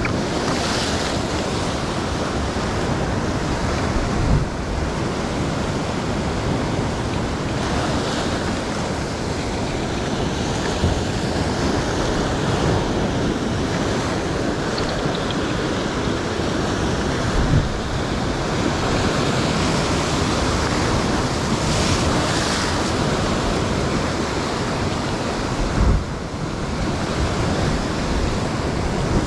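Ocean surf breaking and washing over coastal rocks in a steady rush, with wind on the microphone and a few brief low thumps about 4, 17 and 26 seconds in.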